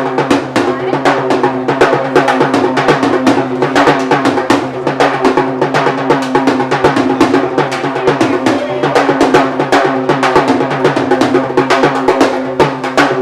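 Music: fast, driving drumming with snare rolls over a held low note.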